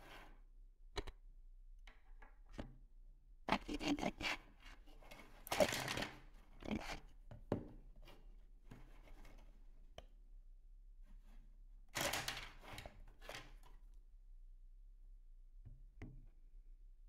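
3D-printed plastic fractal vise jaws being handled and slid on a wooden table, with rubbing and knocking in several bursts: the loudest about four and six seconds in and again about twelve seconds in, with a few single clicks between.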